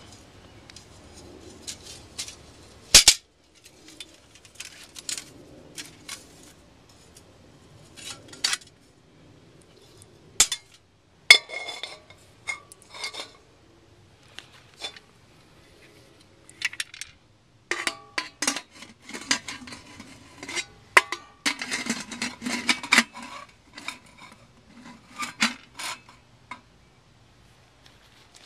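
Stainless steel pressure cooker pot and its lid, with a folding steel firebox stove, being handled: scattered sharp metal clanks and clinks, some ringing briefly.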